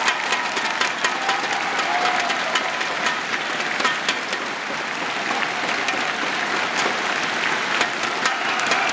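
Large crowd applauding: a steady wash of clapping with many individual sharp claps standing out.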